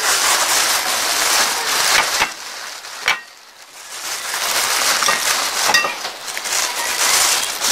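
Thin clear plastic bag rustling and crinkling close to the microphone as it is untied and opened, easing off for a second or so a little after two seconds in.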